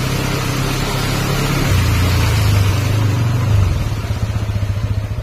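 Motorcycle engine running steadily while riding through shallow floodwater, with water splashing up around the wheels; the engine note drops lower about two seconds in.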